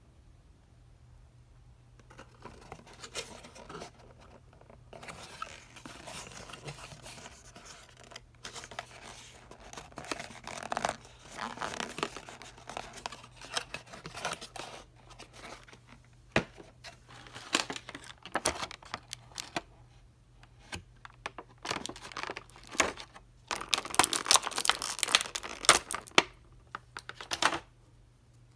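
Cardboard toy box and plastic packaging being handled and opened by hand: irregular rustling and scraping with many sharp clicks, starting about two seconds in, and a dense burst of crinkling near the end.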